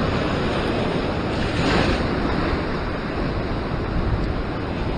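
Sea swell surging and washing over a rock ledge, a steady rushing of surf that swells a little louder about a second and a half in, with wind buffeting the microphone.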